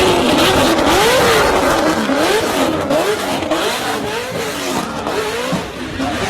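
Loud engine exhaust, the engine revved up and down over and over in quick, short rises and falls of pitch, with a harsh rasp.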